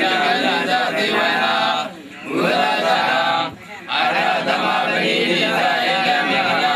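A group of Burmese Buddhist monks chanting together in unison, male voices in a steady recitation that breaks off briefly twice for breath.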